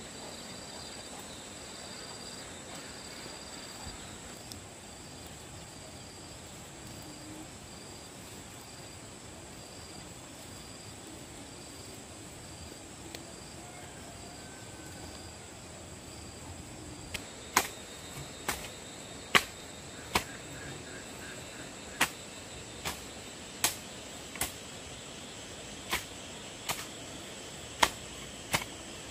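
Insects chirping steadily, with a pulsed chirp repeating about twice a second through the first half. From a little past halfway, a run of sharp knocks comes roughly once a second and stands out as the loudest sound.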